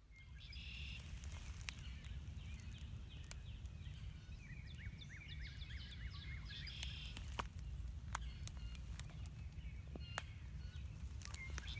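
Outdoor ambience with songbirds singing, including a quick run of repeated chirps midway, over a steady low rumble and a few faint clicks.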